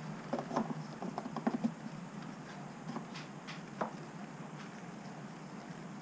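Small light clicks and taps of a plastic funnel and oil bottle being handled at an engine's oil filler, a quick run of them in the first two seconds and a few more spread out around three to four seconds in.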